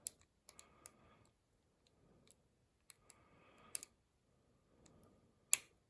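Lock pick and tension wrench working the security-pinned cylinder of a Commando padlock under counterclockwise tension: faint scraping in short stretches with scattered sharp clicks, the loudest click near the end.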